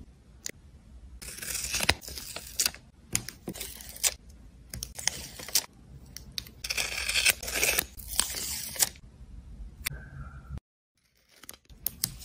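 Washi tape being unrolled, torn and pressed onto paper, with a craft knife trimming along it, in several short rasping bursts.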